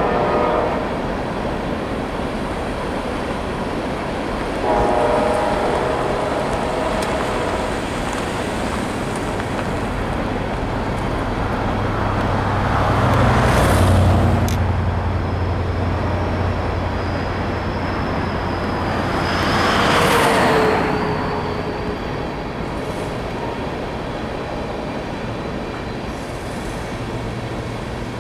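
Freight train passing with its K5LA air horn sounding: a blast ends just after the start and another runs from about five to eight seconds in. Between them is a steady rumble of locomotive and rail noise, with two louder swells around thirteen and twenty seconds.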